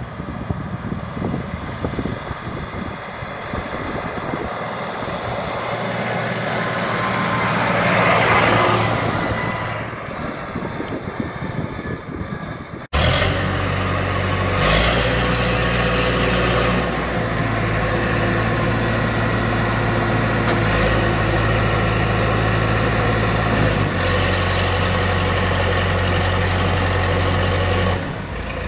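Wind on the microphone with a vehicle passing partway through, then abruptly a telehandler's diesel engine running steadily, its note stepping up and down a few times.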